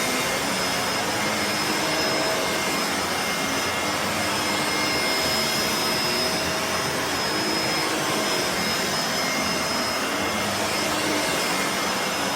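Bissell MultiClean Allergen Pet upright vacuum cleaner running steadily: an even rush of air with a steady high motor whine over it.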